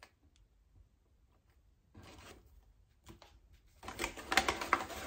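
Brown paper bag rustling and crinkling as hands rummage inside it. It starts faintly about two seconds in and grows louder and denser near the end.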